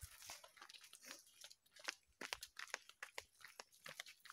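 Faint footsteps crunching irregularly on a dirt path strewn with dry leaves.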